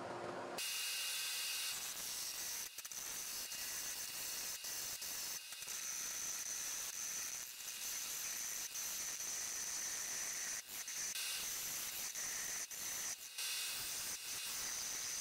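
Wood lathe spinning a maple blank while a gouge cuts into it: a steady high hiss with a thin whine, starting about half a second in and broken by many short dropouts.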